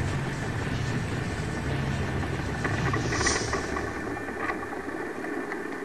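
T-Rex 500 RC helicopter's motor and rotor running steadily, heard through a camera mounted inside its scale Black Hawk fuselage. There is a brief hiss about three seconds in, and the sound is a little quieter near the end.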